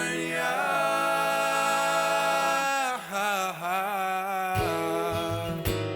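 Background pop song: a singer holds a long note with vibrato, then about four and a half seconds in the bass and drums come back in.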